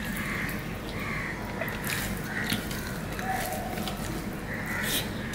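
Close-up chewing of a mouthful of rice and hilsa fish curry eaten by hand: soft, irregular wet chewing and lip smacks with a few small clicks.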